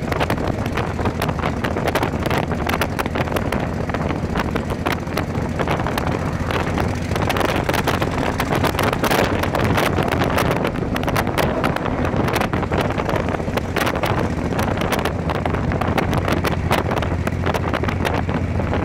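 Motorcycle riding at steady cruising speed: the engine runs evenly under constant road and wind noise, with heavy wind buffeting on the microphone.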